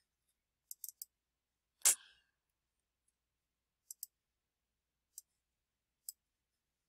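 Computer mouse clicking: a quick run of three clicks, a louder knock about two seconds in, a double click near four seconds, then two single clicks.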